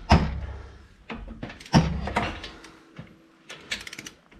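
Hand tools being handled and set down, giving a few hard clunks, the loudest right at the start, and a quick run of clicks near the end.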